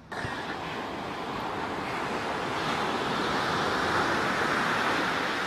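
Surf breaking on a sandy beach: a steady rush of waves that starts suddenly and swells to its loudest about four seconds in.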